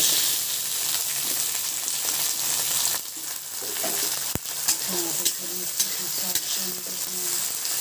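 Tomato pieces hitting hot mustard oil in a kadhai with fried onions and green chilies: a loud sizzle breaks out at once and carries on steadily, with the spatula clicking and scraping against the pan as the tomatoes are stirred in.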